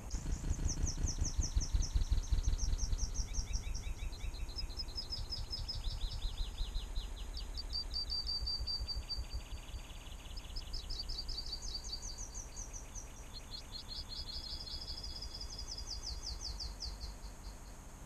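Small garden songbirds singing: repeated runs of quick, high chirps and trills. Under them is a low rumble, loudest in the first few seconds.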